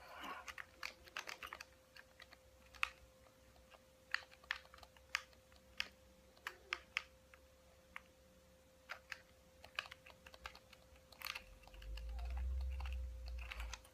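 Irregular quiet clicking of a handheld game controller's buttons being pressed during play, over a faint steady hum. A low rumble comes in about two seconds before the end.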